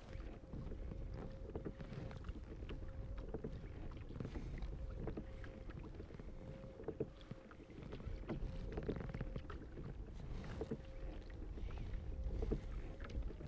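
Kayak under way on open lake water: wind rumbling on the microphone and water lapping against the hull, with light scattered ticks and a faint steady hum.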